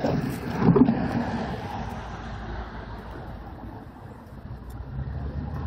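Wind buffeting the microphone of a camera mounted on a moving bicycle's handlebars, a steady rush with louder gusts in the first second. A low hum comes up near the end.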